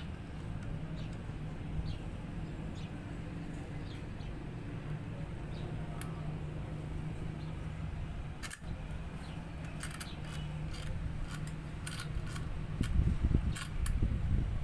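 Small sharp clicks and taps of an airsoft chronograph's parts being handled and fitted together, its metal rods and rail-mount clamp, over a steady low background rumble. The clicks come in a quick cluster past the middle, and louder low handling bumps come near the end.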